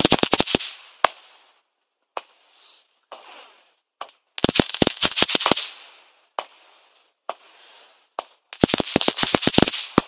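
Fireworks going off: three clusters of rapid, sharp bangs, near the start, about halfway and near the end, with hissing and crackling between them.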